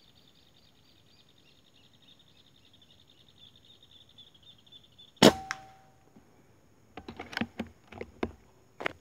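Urko III PCP air rifle firing: one sharp crack about five seconds in, with a brief ringing tone after it, followed from about a second and a half later by a run of quick metallic clicks and knocks as the action is worked. Before the shot, faint rapid insect chirring.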